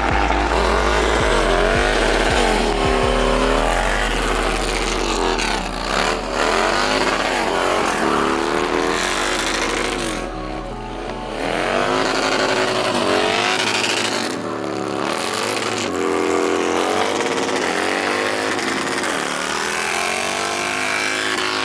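Stunt vehicle's engine revving up and down over and over, over steady tyre squeal and hiss, with brief dips in level about ten seconds in and again near fifteen seconds.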